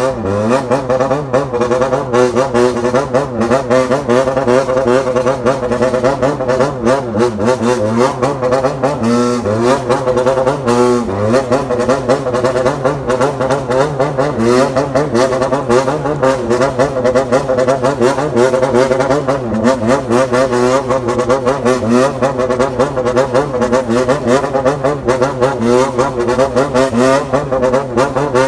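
Honda CBR400F's inline-four engine revved at low rpm in a rhythmic throttle 'call' to a waltz-time pattern. The exhaust note rises and falls continuously with the blips.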